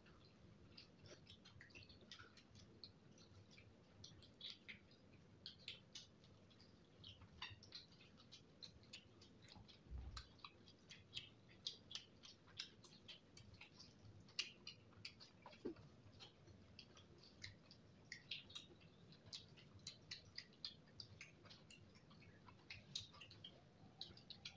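Quiet close-up eating sounds of someone chewing noodles: many small, wet mouth clicks and smacks coming irregularly, at times several a second. A soft low thump comes about ten seconds in.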